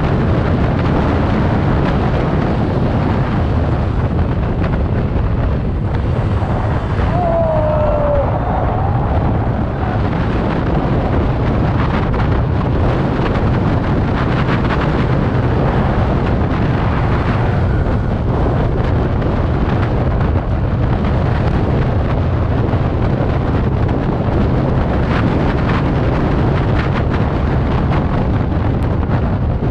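TVS Ntorq 125 Race XP scooter's single-cylinder engine running steadily at full cruising speed, around 90 km/h, under heavy wind rush buffeting the microphone. About seven seconds in, a brief pitched tone slides down in pitch.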